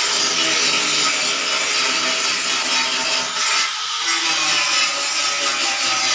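Air-fed paint spray gun hissing steadily as it sprays a metal gate, over a steady motor hum, easing off briefly about three and a half seconds in.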